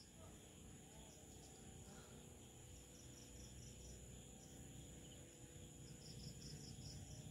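Near silence, with faint background cricket chirping in short even trains of about five pulses, heard near the start, around three seconds in and again near the end.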